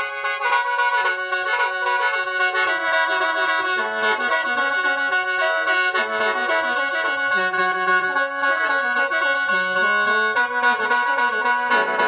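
Khaen, the Lao bamboo free-reed mouth organ, played solo: a quick stepping melody over steady held drone notes.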